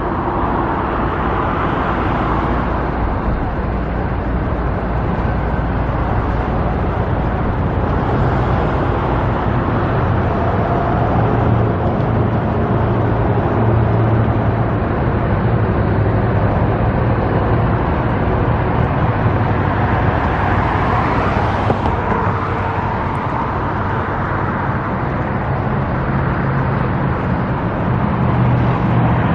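Steady road traffic noise: a continuous rush of passing cars with a low engine hum underneath, swelling a little around the middle and near the end.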